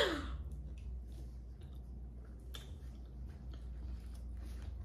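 Close-miked chewing of seafood boil: scattered soft, wet mouth clicks and smacks, several per second at irregular spacing.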